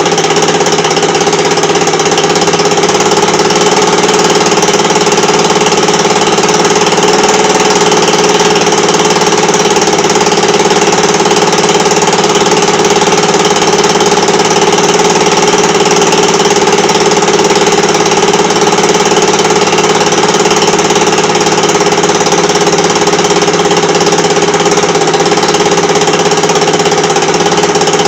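Motor scooter's small engine idling steadily, holding an even pitch without stalling.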